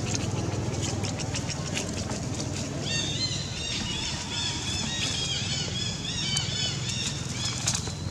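Rapid run of short, high-pitched chirping calls, starting about three seconds in and stopping near the end, over a low steady hum.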